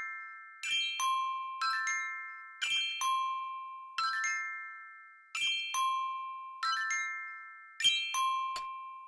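Gentle music of bell-like struck notes, a few about every second, each ringing out and fading, with no bass or beat underneath.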